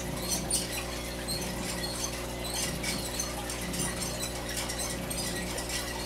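Small rodents scratching and rustling in their tank, a string of quick, irregular light clicks and scrapes over a steady low hum.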